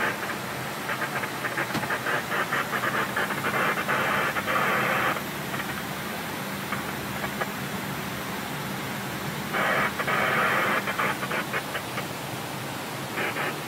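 Airbus A320 cockpit in flight: a steady rush with a low hum underneath, broken twice by loud spells of crackling hiss, the first lasting about four seconds and the second starting near ten seconds in.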